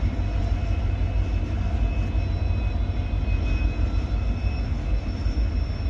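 A pair of coupled Indian Railways WDG4 diesel locomotives running with a steady deep hum from their EMD 16-710 two-stroke V16 engines, with a thin steady whine above it.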